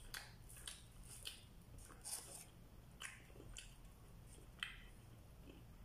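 Quiet eating sounds: a person chewing flatbread and smacking his lips, short soft clicks and squishes at irregular intervals of about half a second.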